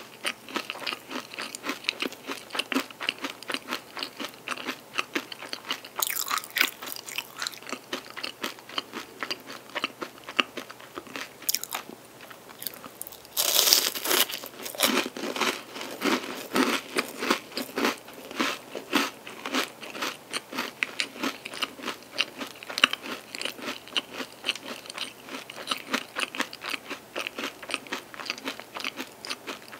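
Close-miked chewing and crunching of a chocolate-and-almond-coated pastry stick: rapid crackly chews throughout, with a loud crunchy bite about fourteen seconds in and smaller crunches around six and eleven seconds.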